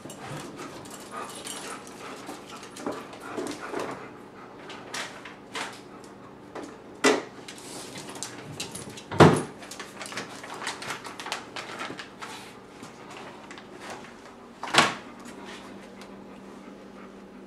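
Two dogs begging for treats, whining softly, with three short sharp barks at about seven, nine and fifteen seconds in; the one at nine seconds is the loudest.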